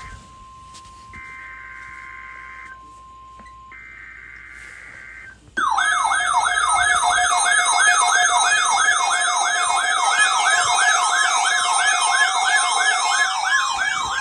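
Three short bursts of screechy digital data tones, the SAME header of a NOAA Weather Radio alert, over a steady single tone. About five and a half seconds in, several weather alert radios set off their alarms together: loud warbling siren tones sweeping up and down about three to four times a second, overlapping one another.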